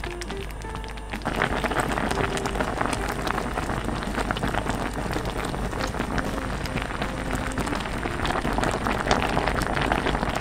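Food bubbling and sizzling in a pot on the stove: a dense, rain-like crackle of small pops and spatters that gets louder about a second in.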